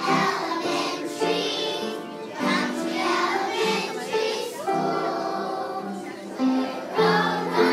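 Group of kindergarten children singing a song together, in phrases of held notes.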